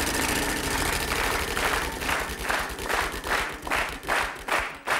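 Game-show prize wheel spinning, its pointer clacking against the rim pegs in a run of ticks that slows steadily as the wheel winds down, to about two ticks a second near the end.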